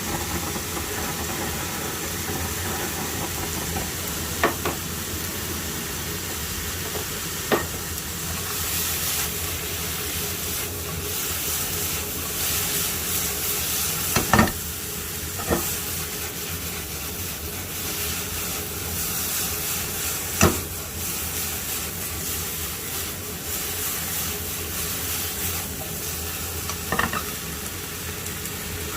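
Pork belly, onion and green onion sizzling as they fry in a pan, stirred with a utensil that knocks sharply against the pan about six times.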